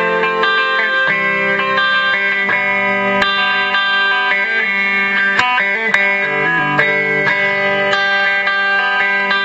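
Electric guitar played through a Boss ME-20 multi-effects pedal, with held, ringing notes and chords that change every second or two.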